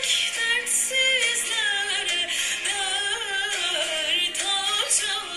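Turkish folk music: voices singing a melody over instrumental accompaniment.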